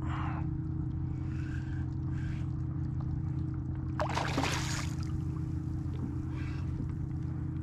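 Steady low hum of the kayak's motor, several fixed pitches held evenly, with a brief louder rush of noise about four seconds in.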